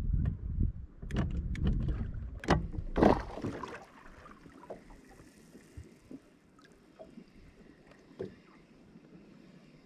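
Wind on the microphone and water lapping against an aluminum bass boat's hull, with several sharp knocks in the first three seconds. After about four seconds it drops to faint lapping.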